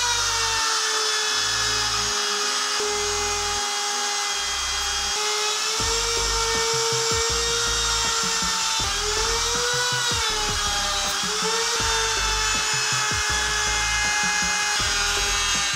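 Compact router running and cutting into hardwood with a steady high whine that dips in pitch and recovers a few times as the bit takes load.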